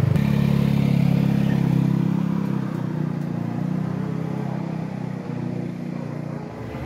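Small motorbike engine pulling away and fading steadily as the bike rides off into the distance.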